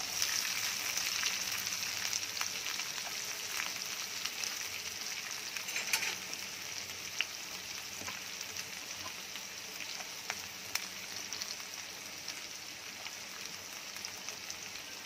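Chopped shallots and onions sizzling in hot oil in a pan: a steady high hiss with scattered pops and crackles, loudest just after the shallots go in and then slowly easing off.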